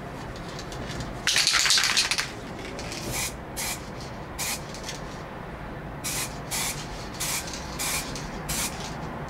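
Aerosol spray-paint can spraying: one long hiss about a second in, then a string of short puffs every half second to a second.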